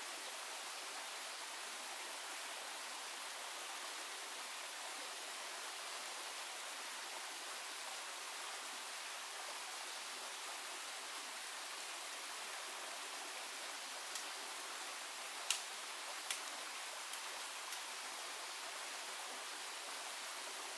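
Steady rush of stream water, with a few light, sharp knocks of bamboo poles about three-quarters of the way through.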